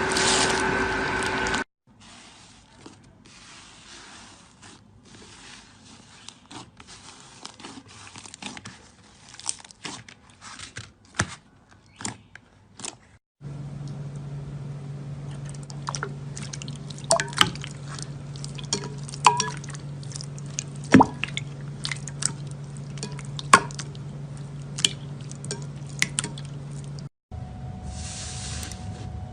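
Slime being squeezed and poked, making sticky clicks and small wet pops. It comes as several short clips joined together, one with a steady low hum behind it.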